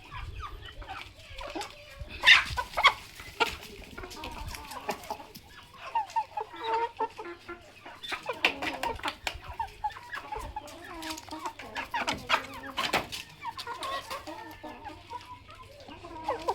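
Village chickens clucking continually while they feed, many short calls overlapping, with clusters of sharp clicks and taps a couple of seconds in, around the middle and about three-quarters through.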